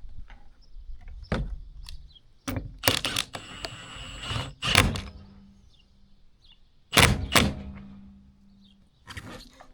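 Irregular knocks and thuds of hands-on installation work, with a hissing scrape from about three to four and a half seconds in and two heavy thuds about seven seconds in.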